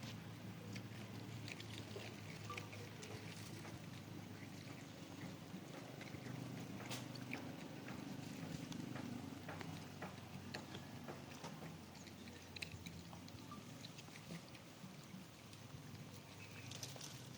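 Monkeys eating watermelon: scattered small clicks of chewing and handling fruit over a low steady hum.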